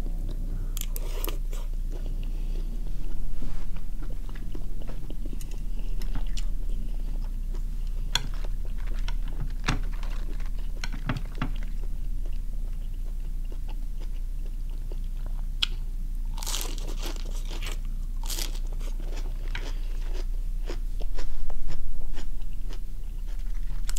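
Close mouth sounds of someone chewing and crunching food (steamed squid and crisp lettuce leaves): many small irregular crunches and wet chewing, with a few louder crunches about two-thirds of the way through.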